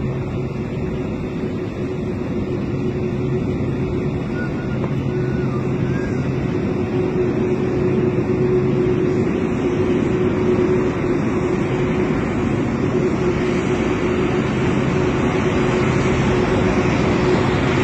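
Jet engines of a Boeing airliner taxiing in toward the stand: a steady rushing noise with a constant hum beneath it, growing gradually louder and brighter as the aircraft approaches.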